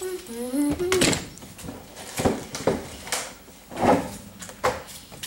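A voice hums a few sliding notes, then comes a series of irregular knocks and thumps from a sheet-music folder being handled at an upright piano.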